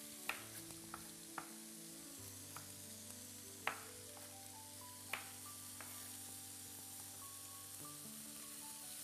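A kitchen knife knocking on a plastic cutting board several times at uneven intervals, the loudest about three and a half seconds in, as carrots are cut into sticks. Under it, a steady sizzle of meat frying in a pan.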